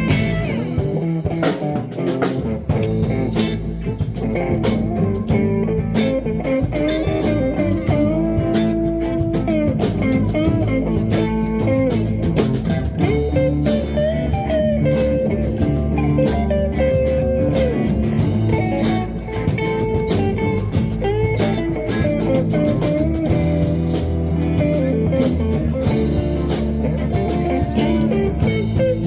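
Live blues band playing: electric guitar over bass and drums, a steady groove with no pauses.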